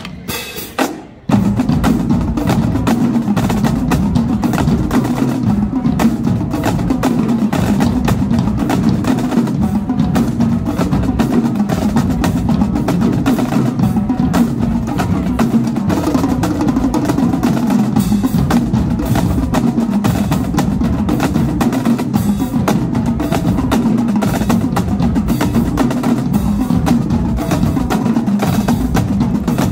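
Marching drumline of snare drums, tenor drums and bass drums playing a drum cadence. A few lighter strokes open it, then the full line comes in loudly about a second in and keeps up a dense, steady pattern of hits.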